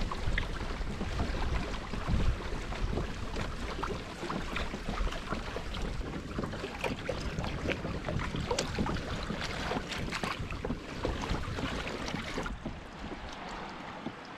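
Water splashing and lapping against the hull of a Hobie Tandem Island sailing kayak under way, with wind buffeting the microphone. It turns quieter and duller near the end.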